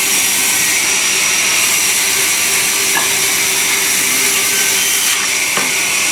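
Sawmill saw running, a loud, steady high-pitched hiss over a constant hum, with a faint knock about three seconds in and another near the end.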